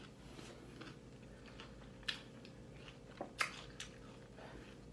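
A person chewing a mouthful of salad quietly, with a few short crisp crunches about two and three and a half seconds in.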